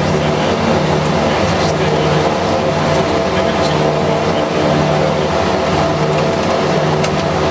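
BAe Jetstream 31's twin Garrett TPE331 turboprop engines running steadily at low power, heard from inside the cabin: a constant drone with several fixed tones.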